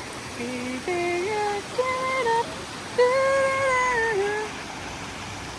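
A person humming a short tune of a few held, stepped notes, the last one longest, over the steady rush of the brook's running water.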